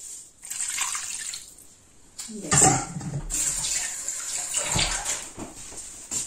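Water being poured into a pressure cooker already filled with beans, grains and meat. The pouring comes in uneven spurts, loudest about two and a half seconds in.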